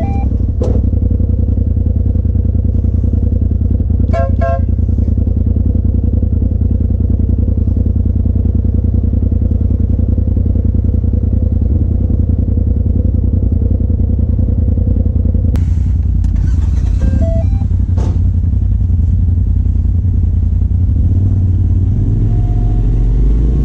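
Polaris RZR side-by-side engine running at a low, steady speed as the machine crawls along a trail, heard from the cab. A few short high chirps come about four seconds in and again around seventeen seconds in. Near the end the engine note rises and falls.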